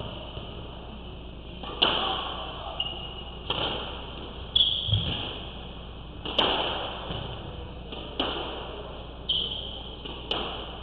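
Squash ball being struck by rackets and smacking off the court walls during a rally: a string of about seven sharp hits, roughly one every second or so, each with a short echo off the court.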